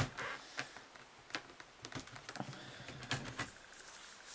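Laptop keyboard being pried up and lifted off by gloved hands: a scatter of light plastic clicks and rattles at irregular intervals, with a quick cluster of clicks near the end.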